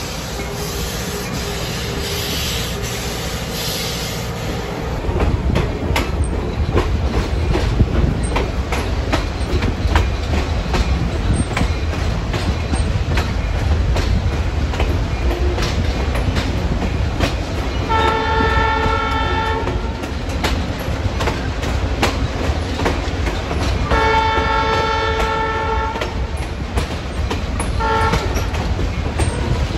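Passenger train running: steady rumble of the wheels with clickety-clack over the rail joints, heard from the car and getting louder about five seconds in. Past the middle the locomotive sounds for a grade crossing: two long blasts, a short one, and a long one starting right at the end.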